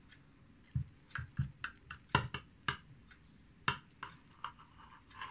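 A knife blade clicking and tapping against a ceramic baking dish while slicing through a baked omelette: a scattered run of light, irregular clicks.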